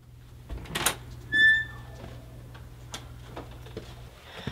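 A door being unlatched and swung open: a click about a second in, then a short high squeak, the loudest sound, and a few light clicks, over a steady low hum that stops near the end.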